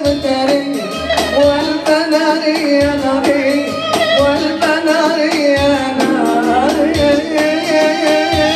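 A woman singing a classic Moroccan song into a microphone, her melody wavering with ornaments and held notes, over a steady percussive beat.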